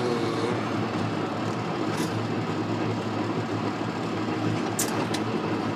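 Tractor engine running at a steady idle, with a few sharp clicks about two seconds in and near the end.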